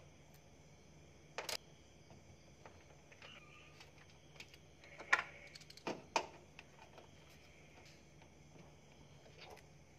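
Faint, scattered clicks and knocks of car parts and hand tools being handled during reassembly, the sharpest a few knocks about five to six seconds in, over a low steady hum.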